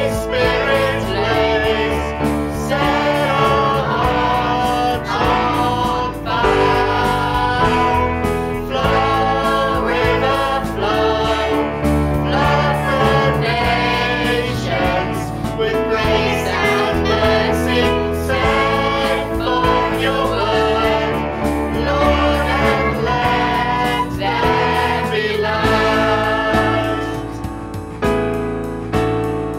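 Worship song with a group of voices singing together over band accompaniment. Near the end the singing drops away and the music thins out.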